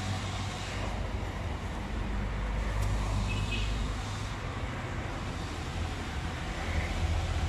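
Engine running steadily with a low, even rumble.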